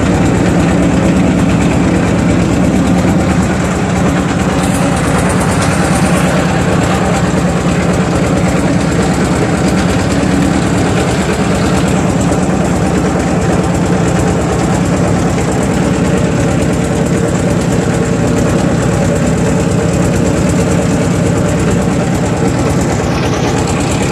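Engine of a wooden river boat running steadily under way: a loud, even drone with a fast, regular beat.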